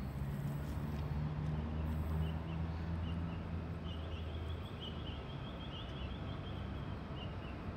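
Low, steady hum of an approaching freight train's NR class diesel locomotives, heard from a distance and easing off about halfway through. Over it, a bird chirps in runs of rapid high notes.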